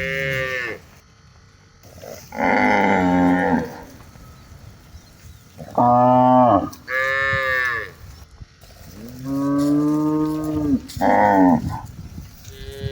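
Several cattle mooing in turn, about six calls of differing pitch, each about a second long, some low and some higher and more strained.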